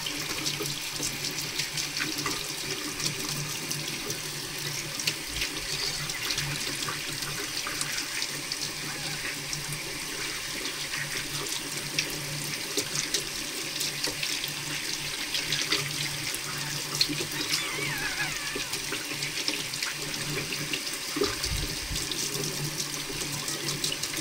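Tap water running steadily into a sink and splashing as hands rinse a kitten's bottom under the stream.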